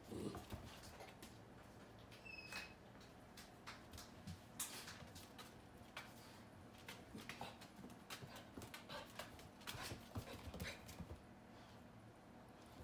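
Dog's claws clicking and tapping on a hardwood floor as a pit bull puppy walks and shuffles about, in irregular quiet ticks. A brief thin high squeak sounds about two and a half seconds in.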